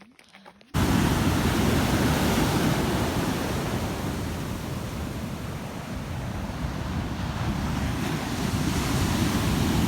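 A loud, steady rush of surf and wind buffeting the microphone, cutting in abruptly about a second in.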